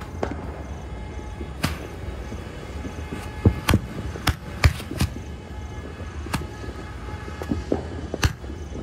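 Ground-based firework going off: a fountain-type device shooting sparks upward, with sharp pops and cracks at irregular intervals, about ten in all, over a steady low noise.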